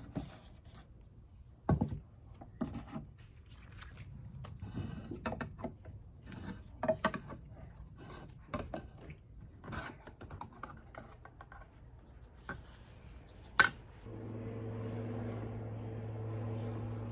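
Scattered clicks, taps and short scrapes of hands handling a can of oil-based wood stain, a container and a brush. About fourteen seconds in, a steady low hum starts and keeps going.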